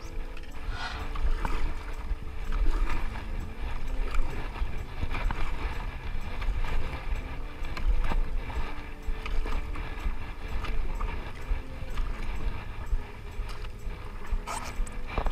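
Paddle strokes dipping and splashing in the water, with irregular light knocks, over a steady low rumble.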